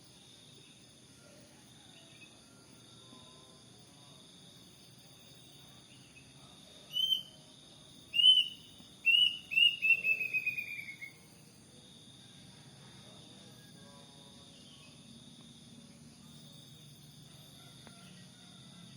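A kedasih, a small Cacomantis cuckoo, calling about seven seconds in: a few separate whistled notes, then a quick run of notes falling in pitch. Insects keep up a steady high buzz around it.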